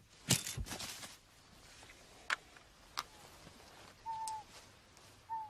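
A sudden burst, then about half a second of rustling, as a radio-triggered bird trap fires on an eagle. Two sharp clicks follow, then near the end two short, slightly falling whistled bird calls.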